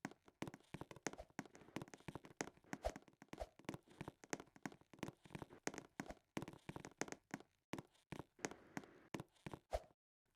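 Quiet, irregular clicks and taps, several a second, with short pauses between runs.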